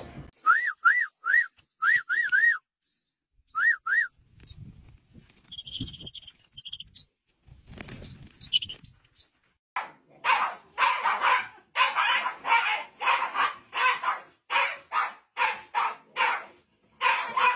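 Short whistle-like chirps, then thin high lovebird chirping. From about ten seconds in, two Shiba Inus yell and bark at each other in a rapid run of harsh calls, about two a second. This is the loudest part.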